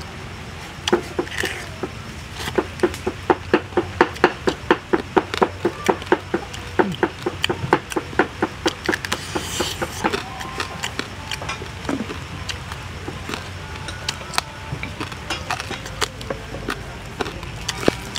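Close-up crunching and chewing of crispy grilled frog: a quick run of sharp crunches, about three or four a second, for several seconds, then sparser crunches.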